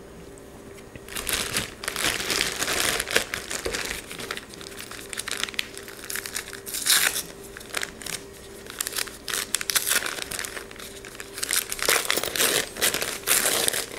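White packing paper and plastic wrapping crinkling and rustling as they are unwrapped by hand, in irregular handfuls with a quieter spell in the middle.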